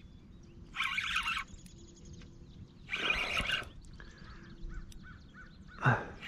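Spinning fishing reel cranked in short spurts about two seconds apart while a hula popper is worked across the surface, with a brief low thump near the end and faint birdsong between the spurts.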